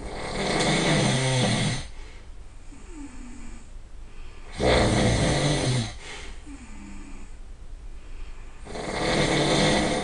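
A person snoring loudly: three long snores about four seconds apart, each lasting over a second, with a soft, short pitched breath sound between them.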